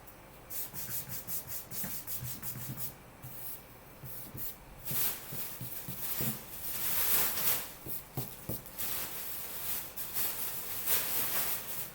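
Trading cards being handled, sliding and rubbing against one another and their plastic sleeves in a run of short scrapes, with a longer swish midway.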